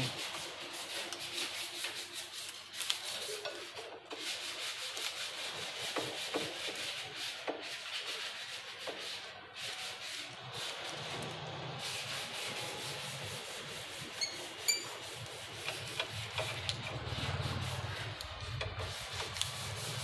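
Hand screwdriver driving wood screws into the edge of a wooden door: a steady rubbing, scraping sound with scattered small clicks.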